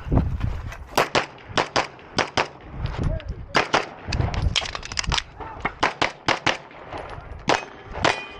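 Pistol fired rapidly in a competition course of fire: about twenty sharp shots, mostly in quick pairs a fraction of a second apart, with brief pauses between the pairs.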